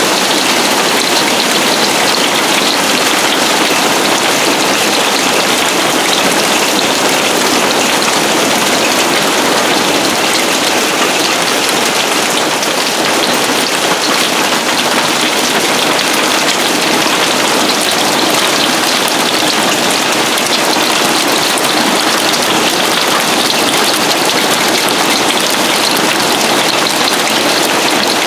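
Heavy hail coming down hard, a loud, dense, steady stream of hits with no let-up.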